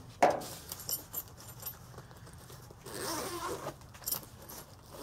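A sharp thump about a quarter second in, then the zipper of a fabric carrying case being pulled open in short rasping strokes.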